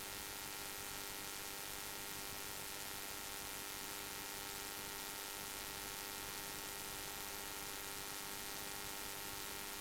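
Steady hiss and hum of an aircraft's radio and intercom audio feed between transmissions, with several faint steady tones and no change through the stretch.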